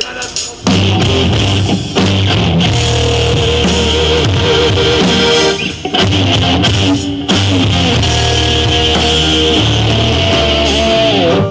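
Live rock band kicking in about a second in: electric guitar and bass guitar over drums, loud and driving, with two brief breaks in the middle.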